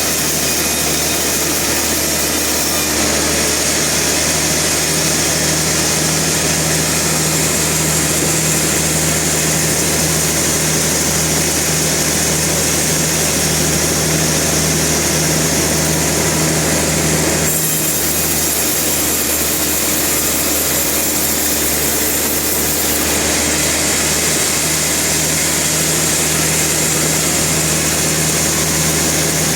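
Sawmill machinery running steadily: a constant low engine hum under a dense, harsh mechanical noise. The sound shifts abruptly about 3 seconds in and again about 17 seconds in.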